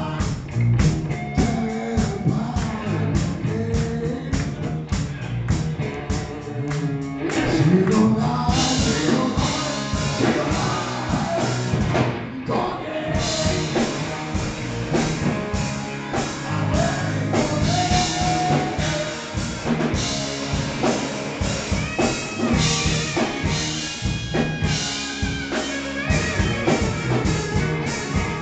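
Live rock band playing: electric guitars, electric bass and a drum kit keeping a steady beat, with a sung lead vocal at times.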